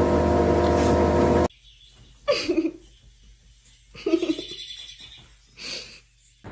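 Background music that cuts off sharply about a second and a half in. Then come two short bouts of a person laughing, about two seconds apart, and a faint brief sound near the end.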